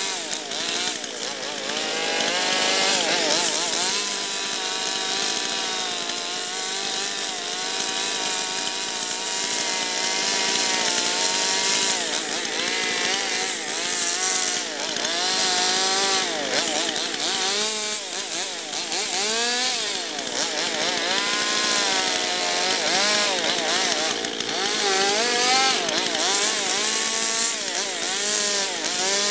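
Stihl two-stroke chainsaw running and cutting into a wooden log, its engine pitch rising and falling over and over as the throttle is worked.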